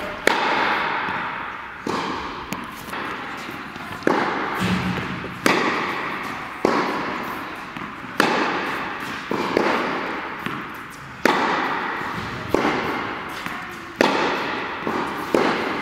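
Tennis groundstrokes in an indoor hall: a steady rally of sharp racket-on-ball hits and ball bounces, about one every second and a half, each knock ringing out in a long echo.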